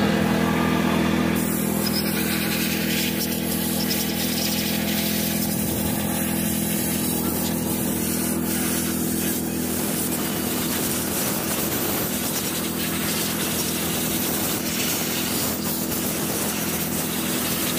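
An engine running steadily at a constant speed, with an even hum that does not change.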